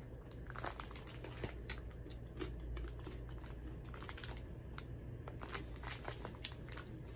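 A crinkly snack bag rustles as it is handled, mixed with crunching as a pretzel is chewed. The sound is a run of irregular short crackles.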